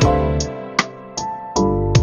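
Background music: sustained keyboard or synth chords over a deep bass, with sharp percussive ticks marking a beat.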